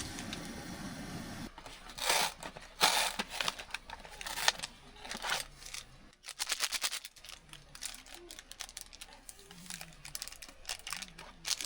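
Plastic packaging crinkling and being torn open, with a quick run of small clicks about halfway through.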